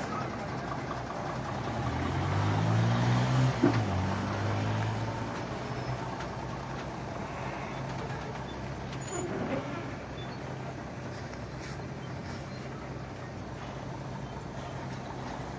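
Heavy truck engine running, revving up with a rising pitch about two seconds in, a brief sharp sound near its peak, then settling back to a steady low idle.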